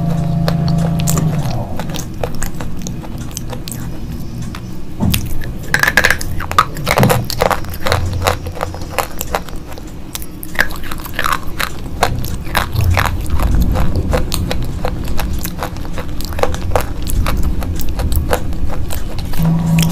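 Slate pencils being bitten and chewed: a long run of crisp, irregular crunches and snaps.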